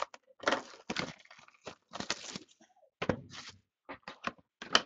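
Sealed cardboard trading-card hobby boxes being handled on a table: an irregular string of short knocks, taps and crinkles.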